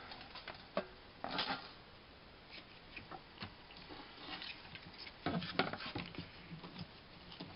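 Light knocks, taps and rustles of kitchen items being handled on a wooden countertop: a foil Spam pouch moved and a plastic cutting board set down, with a denser cluster of knocks about five seconds in.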